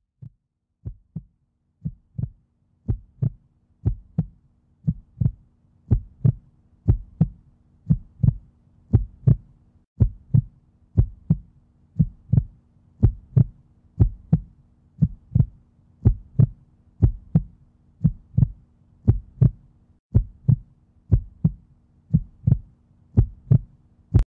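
Heartbeat sound effect: paired thumps, about one pair a second, fading in over the first few seconds and then steady, with a faint steady hum underneath. It stops suddenly near the end.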